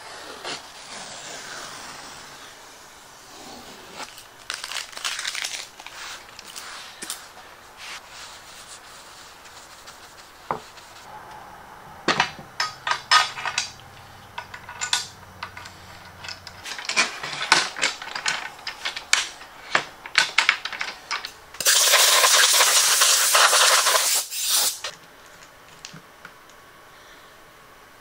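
Hands working on a router table top: blue painter's tape peeled off the laminate, then metal hardware clicking and clattering as a router lift is handled and set into the table. A loud, steady rasping noise lasting about three seconds comes near the end.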